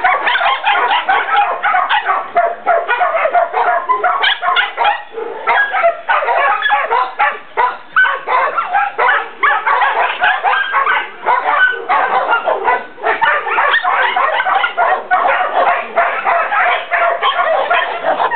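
Dogs barking over and over, a dense run of short barks and yips, several a second with only brief pauses.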